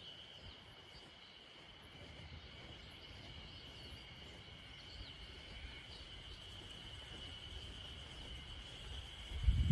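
Steady high-pitched chirring of an insect chorus, with a low rumble underneath that grows louder and a louder low bump near the end.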